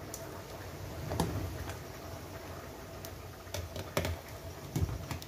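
A pot of juá water boiling under a thick head of foam, with irregular light clicks and a few louder knocks as a metal dipper scoops the foam off and touches the pot.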